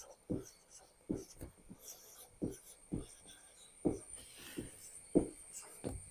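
A run of soft, irregular taps and rubbing strokes, about two a second, over a faint steady high-pitched whine.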